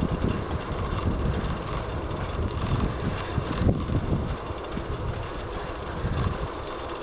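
Wind buffeting a compact camera's built-in microphone while riding a bicycle, with a low, uneven rumble that swells and fades, mixed with the hiss of the tyres on the asphalt road.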